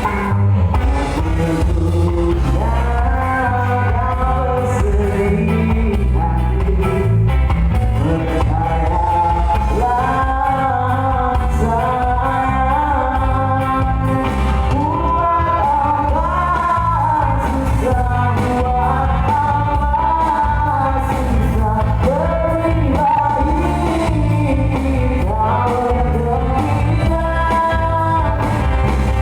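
Live band playing a pop-rock song, a lead vocalist singing the melody over a heavy bass line.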